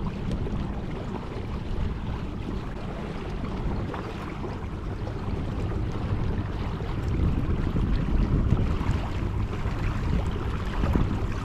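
Wind buffeting the microphone over water splashing and rushing along the hull of a moving fishing kayak, a little louder in the second half.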